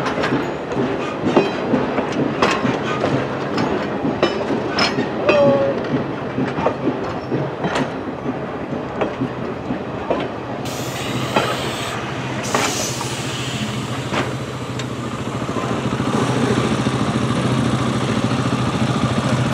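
Railway passenger coaches rolling past close by, their wheels clacking irregularly over rail joints with a brief squeal. About ten seconds in the sound changes to a steadier rolling rumble of the last coach, with a low steady engine hum from idling motorcycles growing louder near the end.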